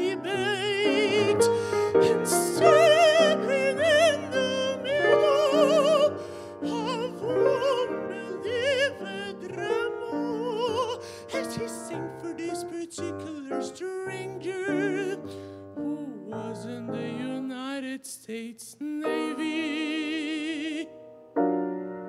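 A singer in an operatic style, with wide vibrato, accompanied by a grand piano. Near the end the voice holds one long note, then stops and the piano carries on alone.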